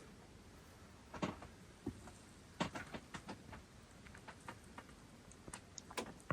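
Faint, scattered clicks and taps of small objects being handled, about a dozen irregular knocks over a quiet background, a few of them sharper.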